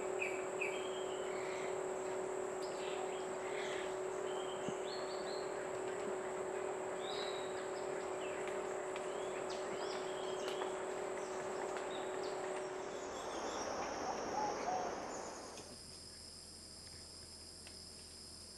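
Wild birds calling and chirping over a steady background hiss. About fifteen seconds in, the birds and hiss fade to a quieter, steady high drone of insects.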